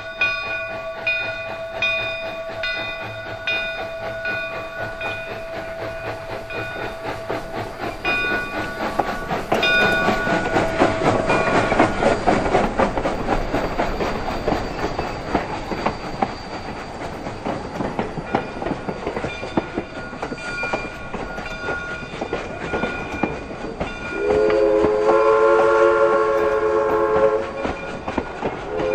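Southern Railway 2-8-0 steam locomotive #401 approaching with a bell ringing steadily, then passing close by with the clatter of its running gear and of the coaches' wheels over the rail joints. About 24 s in, its steam whistle blows a chord of several notes for about three seconds.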